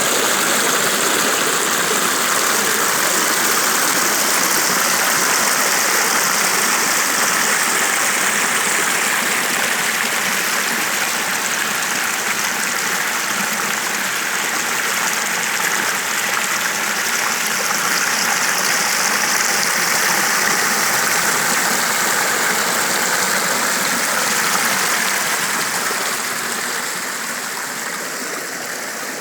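Steady rush of flowing water, a dense even hiss that eases off slightly over the last few seconds.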